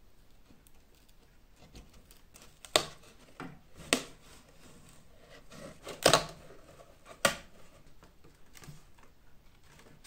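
Old, dried leather being pulled and torn away from the wooden boards of an antique fireplace bellows, with four sharp snaps a second or two apart and quieter rustling and clicks between them.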